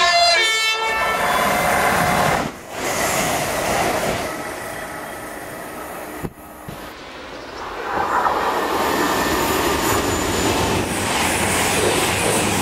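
A train horn sounds briefly, changing pitch, at the start. Then trains run through the station at speed with steady rumbling wheel and rail noise, loud again in the later seconds as an express passes close by.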